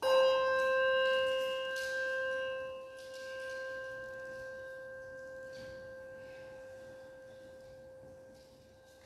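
A small hand bell struck once, ringing on with a clear tone that slowly fades away. It is a memorial toll for a departed church member whose name is read aloud.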